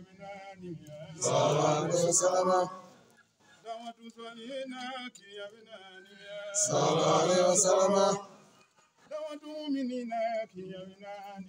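Men chanting in call and response, Islamic devotional chanting: a single male voice chants drawn-out lines, and a group of men answers together, louder, twice.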